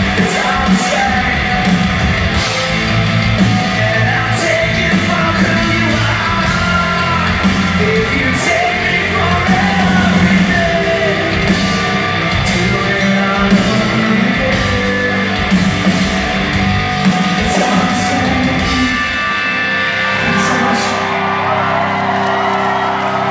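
A live rock band plays loud, with electric guitar, bass guitar, drums and singing, heard with the echo of a large hall. About 19 seconds in, the playing turns into a held, ringing final chord, and yelling and cheering from the crowd rise over it.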